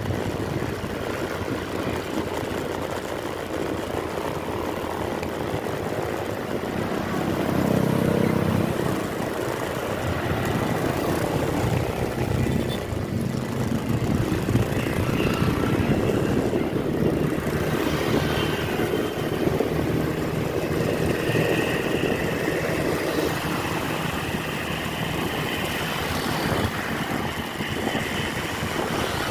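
Vehicle running along a road: steady engine and road noise that swells a little around eight seconds in, with a faint higher tone joining in the second half.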